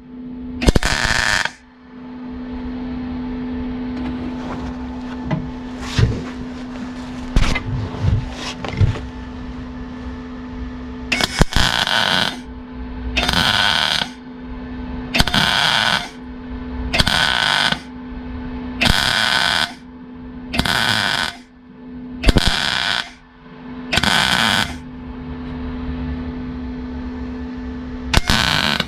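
Welder laying a string of short stitch welds into the sheet-steel bodywork of a 1967 Rover P6. Each crackling burst lasts about a second with a brief pause between, around eight in a row from about ten seconds in, with a few knocks before them and a steady hum underneath.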